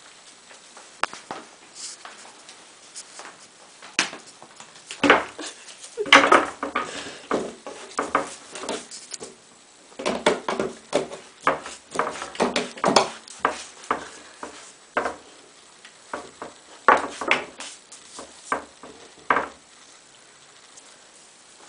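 Old English Sheepdog nosing and pawing a lemon around a tile floor and against a wooden cabinet: a long run of irregular knocks, taps and scuffles, busiest from about four seconds in until shortly before the end.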